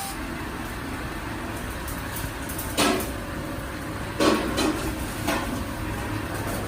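Steady hum of factory machinery, with three sharp metal knocks about three, four and five seconds in, the middle one loudest and ringing briefly.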